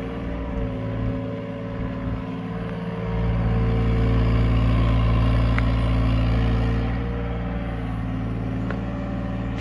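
Hyundai 35Z-9 mini excavator's diesel engine running steadily, growing louder and heavier about three seconds in for about four seconds as it lifts and swings a loaded bucket, then easing back.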